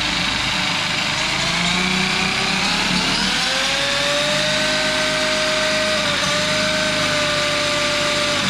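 Traxxas Maxx RC monster truck's brushless electric motor and drivetrain whining, wheels spinning free in the air at full throttle with the power capped low by the Traxxas Link acceleration setting. The whine climbs in pitch about three seconds in, then holds steady.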